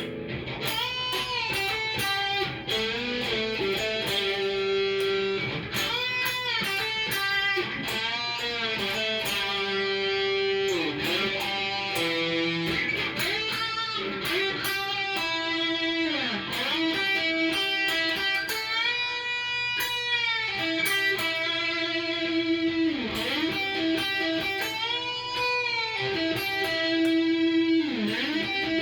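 Cort S series electric guitar played through a Fender amp: a melodic single-note lead with notes bent up and back, held notes with vibrato, and several sweeping dips in pitch that fall and come back up.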